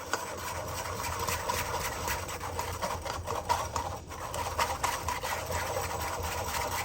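Electric blender running steadily: a motor hum with a constant rattle from the fruit and skins being churned.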